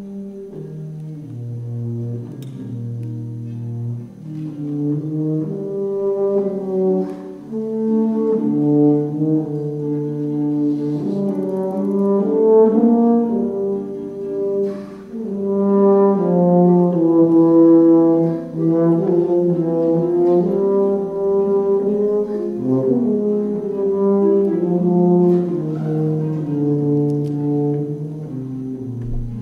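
Tuba playing a slow melody of long held low notes.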